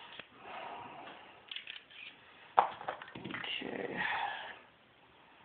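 Small metallic clicks and scrapes of a North American Arms .22 Magnum five-shot mini revolver being unloaded by hand, with one sharp click a little over two and a half seconds in.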